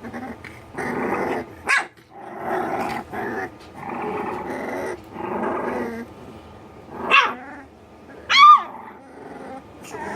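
Two three-week-old American Bully puppies scuffling: small rough growls in several stretches, broken by a few short high yelps, the loudest near the end.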